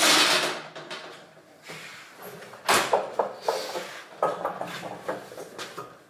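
Handling knocks from a 12-volt compressor fridge cabinet being moved: a sharp clunk at the start that dies away over about a second, a second clunk about two and a half seconds in, then lighter knocks and clicks.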